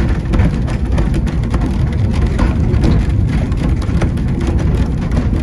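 2 ft gauge narrow-gauge train running along the track, heard on board: a steady low rumble with rapid rattling and clicking from the wheels and coaches.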